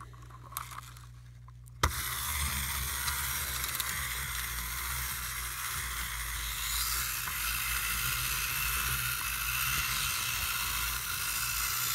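Vintage plastic windup monster toys running: after a sharp click about two seconds in, their clockwork motors whir steadily as the toys walk on a hard surface.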